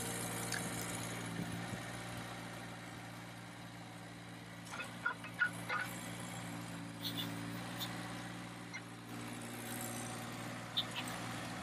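A steady engine-like hum, as of a running digger, with a few plastic clicks and knocks from the toy excavator digging partway through.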